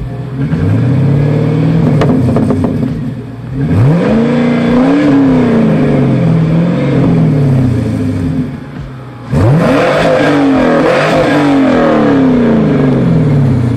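Fourth-generation Chevrolet Camaro's LS-series V8 exhaust idling with a rumble and being revved hard by hand: a rev right away, a long rev about four seconds in that climbs and falls back, then another rev near the ten-second mark followed by several quick throttle blips.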